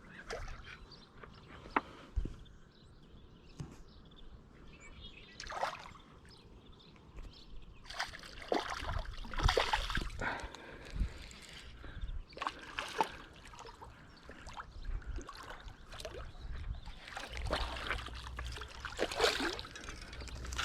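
River water sloshing and trickling in uneven bursts, with a low rumble under the louder stretches.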